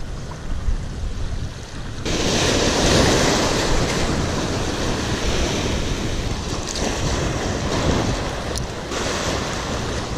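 Surf washing up over a weed-covered rock ledge, a loud rush of water that swells about two seconds in and holds, with wind buffeting the microphone.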